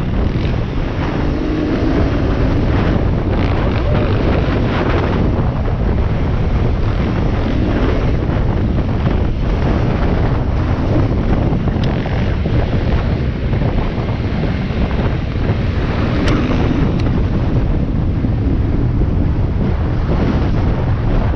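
Wind buffeting a helmet-mounted microphone on a moving off-road motorcycle, steady and loud, with the bike's engine running underneath it.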